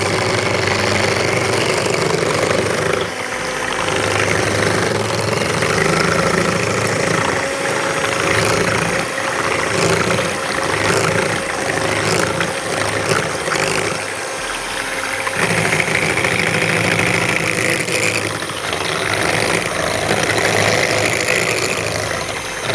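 Electric hand mixer running steadily, its beaters whisking a glass bowl of liquid chocolate cream. The cream is being beaten until it turns creamy.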